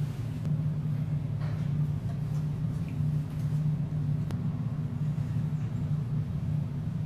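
Steady low hum of ventilation, such as the extractor hood over a teppanyaki grill, with a couple of faint light clicks.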